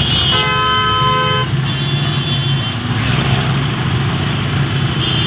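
Vehicle horns in a traffic jam: one horn sounds for about a second near the start, then a higher-pitched horn briefly, over the steady engine drone of the auto-rickshaw.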